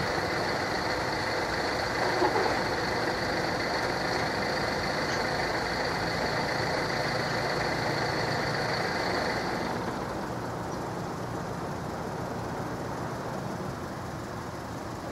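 Level crossing warning alarm sounding steadily, cutting off about ten seconds in, over a car engine idling close by.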